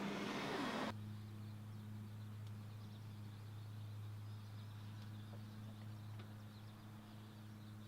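A rushing noise cuts off abruptly about a second in, leaving a steady low hum with a few faint light ticks.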